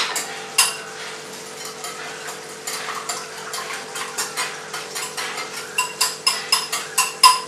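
A utensil stirring and beating an egg, coconut cream and curry paste mixture in a bowl, clinking against the bowl's side with a ringing tone. The strokes are sparse at first and become quicker and louder near the end, about four or five taps a second.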